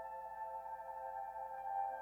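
Background ambient music: soft, sustained pad-like tones that slowly swell.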